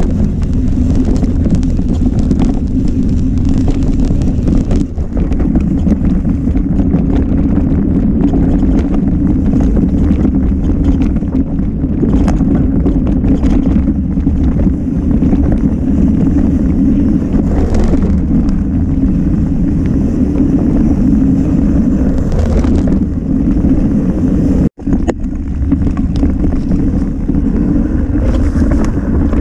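Steady wind buffeting on a ride-mounted camera microphone, mixed with the rumble of a mountain bike descending a trail at speed. The sound cuts out for an instant near the end.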